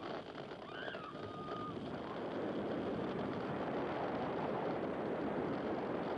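On-ride sound from the front seat of a Bolliger & Mabillard steel roller coaster in motion: a steady rush of wind and track noise, with a brief high squeal or cry that rises and then holds, about a second in.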